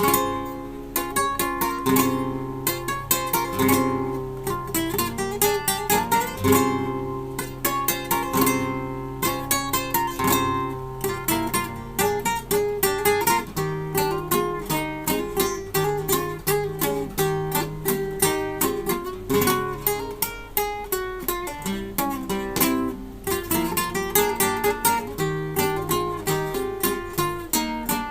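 Solo acoustic guitar played fingerstyle: a continuous passage of plucked notes over a moving bass line.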